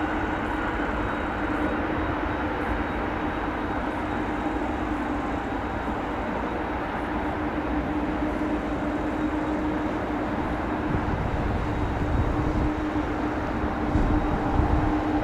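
Jet engines of a large cargo airliner running steadily: a whine of several steady tones over a low rumble. The rumble swells in the last few seconds.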